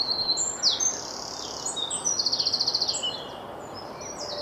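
Spring dawn chorus: several songbirds singing at once, with high whistled phrases, quick downward sweeps and a fast rattling trill about two seconds in, over a steady background hiss.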